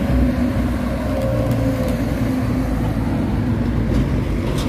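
Container-hauling tractor trucks and other traffic drive past on an expressway, with steady engine sound and tyre noise.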